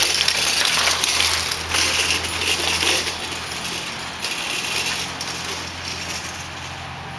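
Children's bicycle with training wheels rattling and clinking as it rolls over rough concrete, fading steadily as it moves away.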